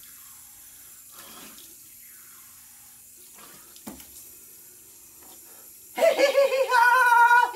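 Water tap running into a sink. About six seconds in, it is cut across by a loud, high, wavering vocal cry from a man.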